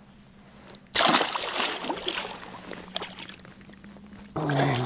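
Water splashing and sloshing beside a fishing boat as a hooked fish, tangled in the line, is brought in. The splashing starts suddenly and loudly about a second in, dies down, and comes again in a loud burst near the end.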